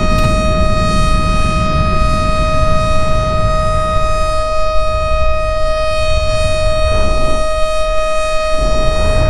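Civil defense siren sounding one loud, steady tone that holds its pitch, with a low rumbling noise beneath it.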